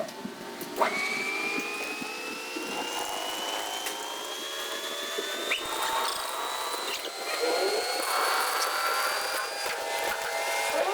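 A power tool motor starts about a second in and runs with a whine that rises slowly and steadily in pitch.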